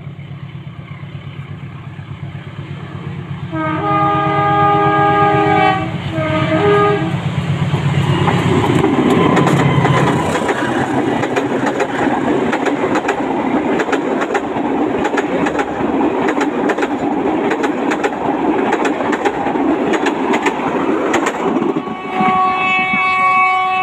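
Diesel locomotive of a passenger train running as it approaches, then sounding its multi-tone horn in one long blast and a short one, and passing close by with the wheels clattering steadily over the rails as the coaches go past. The horn sounds again near the end.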